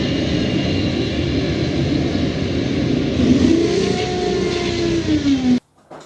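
A loud motor running steadily, its pitch rising and then falling over the last couple of seconds before it cuts off suddenly.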